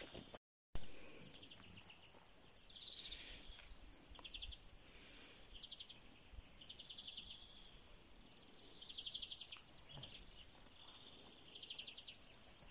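Small birds singing in a forest, with high repeated twittering notes and short rapid trills, over a faint steady background rush.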